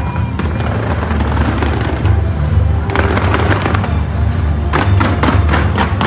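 Fireworks going off in quick succession: a dense run of pops and crackles, thickest about three seconds in and again near the end.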